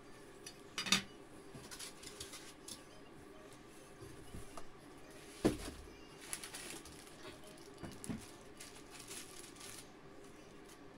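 Unboxing handling noises: cardboard and plastic wrapping rustling, with scattered knocks as items are lifted out and set on a table, and one heavier thump about halfway through.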